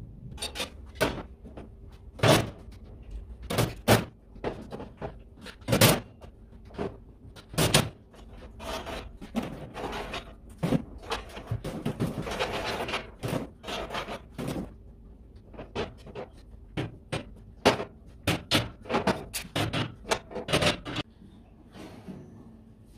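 Metal grill parts being taken out and handled: a long run of sharp clanks and knocks as steel pieces and cast grill grids are lifted and set down, with a stretch of metal scraping about halfway through.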